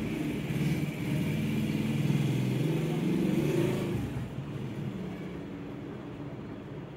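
A motor vehicle engine running and revving, loudest for about the first four seconds and then fading away.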